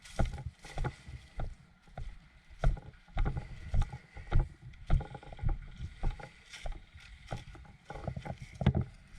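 Footsteps and gear or camera handling: irregular thuds and knocks about every half second to a second, with light rustling between them.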